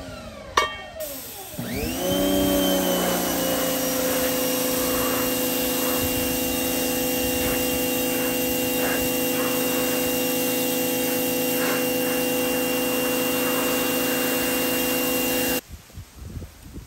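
Pressure washer spraying a cast iron skillet to strip rust and old seasoning. Its whine falls away at the start; after a sharp click it rises again about two seconds in and holds steady with the hiss of the spray, then cuts off suddenly near the end.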